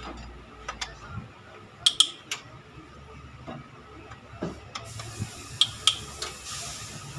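Hand tools and metal engine parts clinking and tapping during a cylinder head teardown: scattered sharp metallic clicks, some in quick pairs, the loudest pair about two seconds in.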